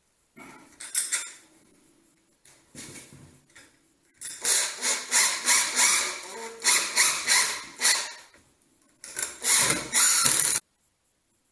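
Tool and handling noises: a few short knocks, then a quick run of sharp clicks and clatters, and a last burst that cuts off suddenly.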